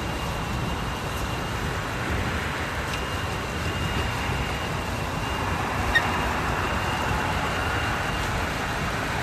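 Steady highway traffic noise: passing vehicles and tyre rumble, with a short click about six seconds in.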